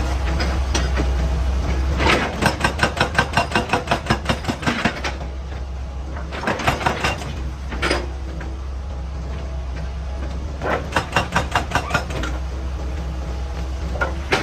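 Excavator engine running with a steady low drone, broken by several bursts of rapid rattling strikes, about five a second.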